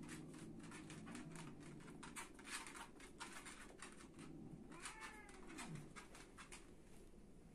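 Domestic cat growling low in a standoff with a dog, with a short falling cry about five seconds in and scattered soft clicks and scuffs.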